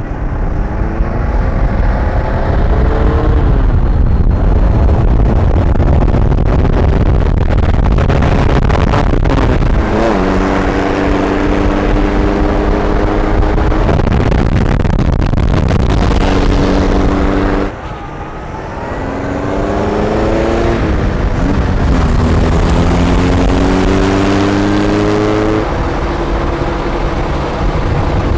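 A car engine accelerating hard through the gears: its pitch climbs, drops back at each shift and climbs again, over a heavy low wind rumble. About two-thirds of the way through, the sound falls away for a moment, then builds up through the gears once more.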